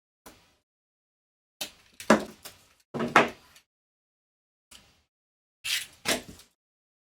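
A series of short knocks and clatters of objects being handled and set down, with silence between them. The loudest cluster comes about two to three and a half seconds in, and another pair comes near the end.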